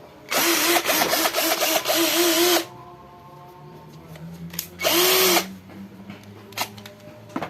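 Cordless drill motor running with the trigger held for about two seconds, then a quieter hum, then a second short burst about five seconds in that speeds up and winds down.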